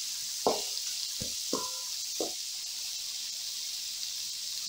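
Chopped onions, tomatoes and green chillies sizzling in hot oil in a metal kadai, with a metal ladle knocking against the pan four times in the first two and a half seconds as they are stirred.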